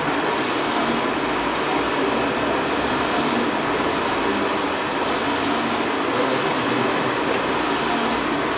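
UV flatbed inkjet printer running, its print carriage with the curing lamp sweeping back and forth across a plastic sheet: a steady mechanical whirr and hiss that swells and dips about once every 1.2 seconds, with each pass.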